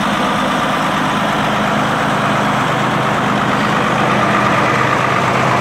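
1970 International Harvester 1456 tractor's six-cylinder turbo diesel engine idling steadily.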